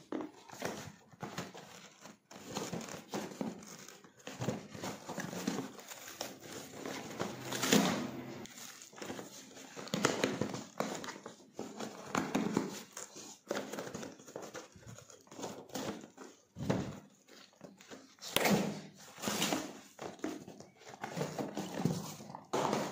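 Cardboard shipping box being torn open and handled by hand: irregular rips, crinkles and scrapes as a boxed product is worked out of it.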